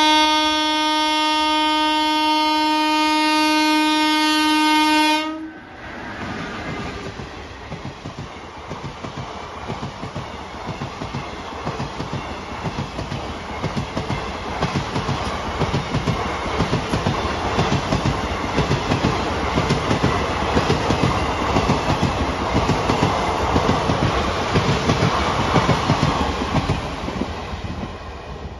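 Indian Railways electric locomotive horn blown in one steady blast of about five seconds. Then the express's coaches pass close by with a rhythmic clickety-clack of wheels over the rail joints, fading near the end as the last coach goes by.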